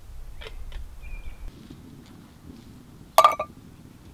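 Metal camp kettle being handled: a few faint knocks, then a loud, sharp metallic clink with a short ring about three seconds in.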